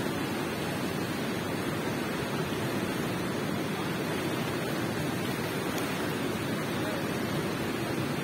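Water rushing steadily in a cave: an even, unbroken noise, fullest in the low-middle range.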